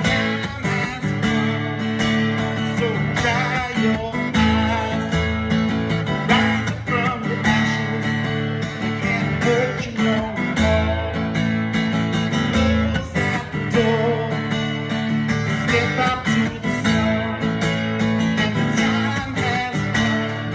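Acoustic guitar strummed in a steady, driving rhythm.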